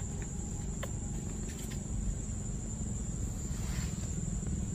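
Outdoor ambience: a steady, high-pitched insect drone under a continuous low rumble, with a few faint clicks.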